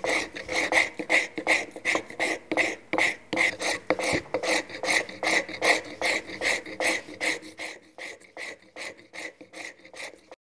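Travisher shaving out the hollow of an elm stool seat in quick repeated strokes, about three a second, each a short scrape of blade on wood. The strokes grow fainter near the end and stop abruptly.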